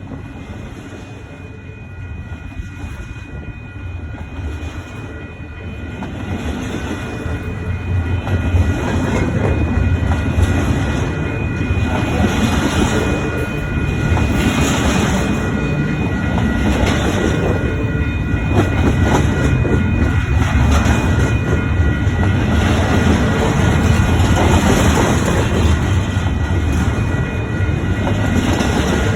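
Long intermodal freight train rolling past, wheels clattering over the rail joints with a steady rumble that grows louder over the first several seconds and then holds.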